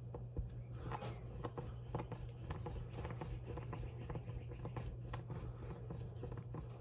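Oven-bake polymer clay rolled under a palm on a stone countertop: soft rubbing with many light, irregular taps and ticks, over a steady low hum.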